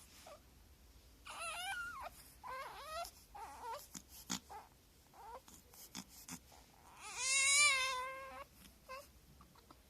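Newborn baby fussing: a few short whimpering cries, then one longer, louder wavering cry about seven seconds in.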